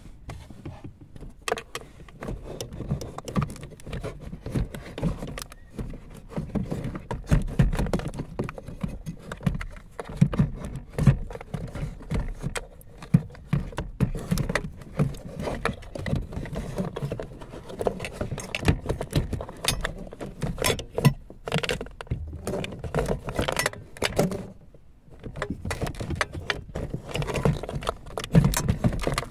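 Hands working on a car's plastic cabin blower motor housing under the dashboard: irregular plastic clicks, knocks and rattling, with a brief lull about 25 seconds in.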